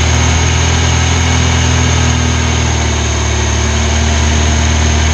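A Moskvich 2140's UZAM-412 four-cylinder petrol engine runs steadily at a raised speed of about 2000 rpm. Its vacuum advance is disconnected while the distributor is turned to set the ignition timing by ear.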